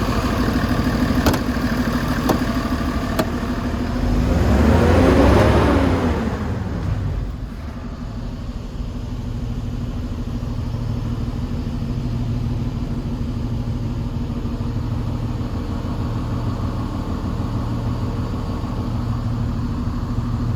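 DAF LF220 truck's Euro 6 turbo diesel engine idling, revved once about four seconds in, rising and falling back to idle over about three seconds. A few sharp clicks in the first few seconds.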